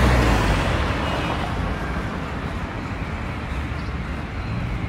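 Road traffic noise: a loud low vehicle rumble fading away in the first half second, then a steady traffic hum.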